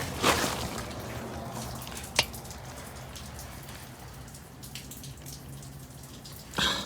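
Scattered clicks, taps and scrapes of hands working at the plastic under-engine splash cover and its turn-clips, with one sharp click about two seconds in.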